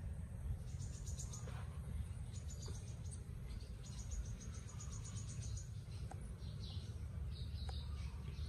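Insects chirping in rapid high-pitched trills, several runs of quick pulses in the first two-thirds and scattered chirps after, over a steady low rumble.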